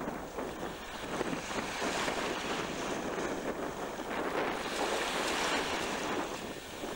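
Wind buffeting the camcorder microphone, mixed with the wash of sea waves, as a gusting, uneven rush.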